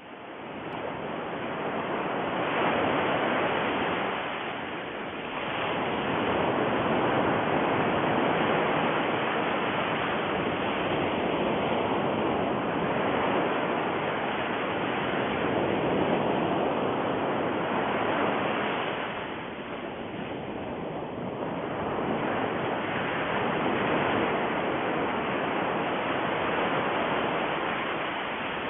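A steady rushing noise like surf, swelling and easing slowly a few times, with no tones or knocks in it.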